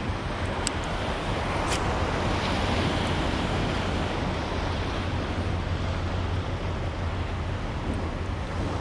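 Wind buffeting an action-camera microphone, a steady low rumble, with sea water washing around a kayak. Two small ticks in the first two seconds.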